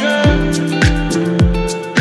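Background music with a steady beat: a deep, falling-pitch kick drum just under twice a second under held synth chords.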